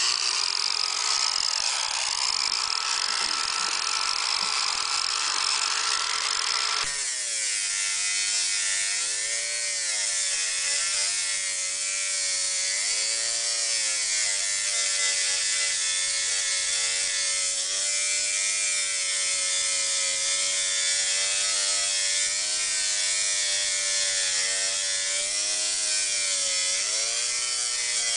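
Angle grinder running with a high whine over a hiss. About seven seconds in, its pitch drops suddenly, then wavers down and up as the disc is pressed against the steel edge of a lawnmower blade and eased off while sharpening it.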